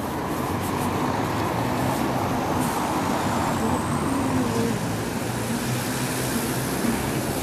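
Steady wind noise: gusting wind rushing through tall bare poplar trees and buffeting the camera microphone, an even rushing hiss with a low rumble beneath it.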